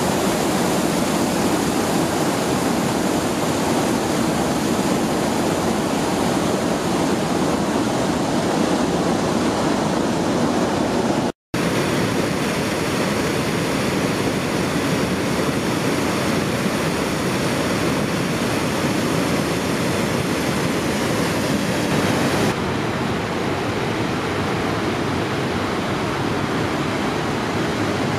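Water pouring over a reservoir dam's overflow weir and crashing into the pool below: a loud, steady rushing. It breaks off for an instant about eleven seconds in, and about twenty-two seconds in gives way to the duller rush of a fast, shallow stream running over rocks.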